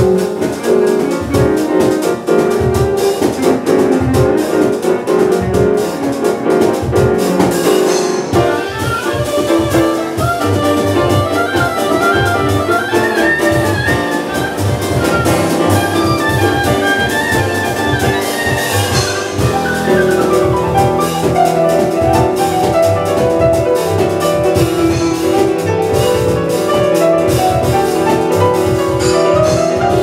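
Live jazz quartet playing an up-tempo tune: an oboe carries a winding melody over piano, upright double bass and percussion.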